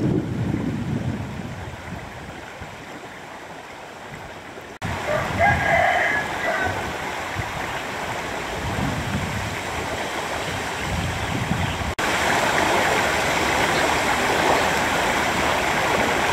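A low wind rumble on the microphone, then a rooster crowing once about five seconds in. From about twelve seconds, floodwater rushes steadily over a submerged road.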